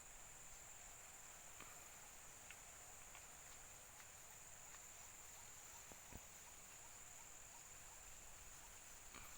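Faint, steady, high-pitched insect chirring, cricket-like, with a few soft ticks.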